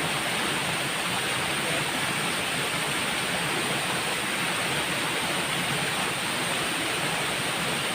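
Waterfall pouring steadily into the pool below, a constant rushing of water.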